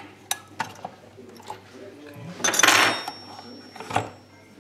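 Metal hand tools clinking and clattering against the metal fittings of an espresso machine's internals. There are a few sharp clicks at first, a longer, louder rattling clatter around the middle, and one knock near the end.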